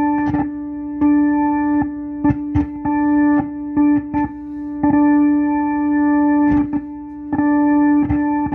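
A held Hammond organ note through a Leslie speaker crackling with sharp pops and cutting out briefly about a dozen times as the 12AU7 tube in the Leslie amplifier is pushed. This is an intermittent short, which was later traced to a cold solder joint under the tube socket.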